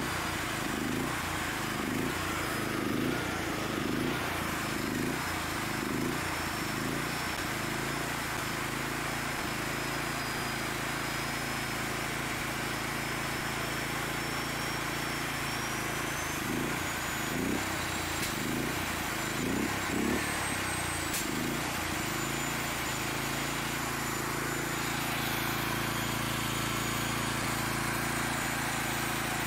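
Honda GX390 single-cylinder engine running while it drives a 3D-printed two-stage regenerative supercharger by belt. The engine swells and dips about once a second at first, then smooths out into a steadier run. A thin high whine slowly rises in pitch over it.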